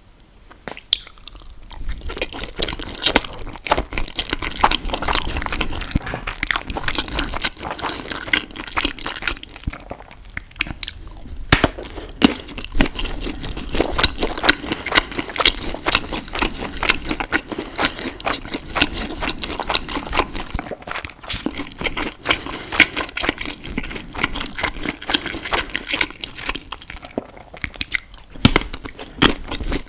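Close-miked eating: wet, sticky chewing with many small, quick mouth clicks. It pauses briefly about ten seconds in and again near the end.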